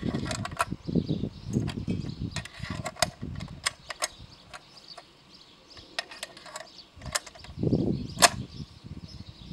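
Metal clicks and knocks from a DP-28 pan magazine being loaded by hand: its rotating mechanism is turned and a rifle cartridge is pushed into the feed slot. The clicks are scattered and irregular, with dull handling knocks in between and one sharp click near the end.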